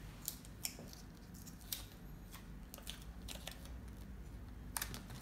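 Faint crinkling and small ticks of paper sticker backing being peeled off and a label pressed onto a plastic tub lid, a few scattered snaps over a low room hum, a little busier near the end.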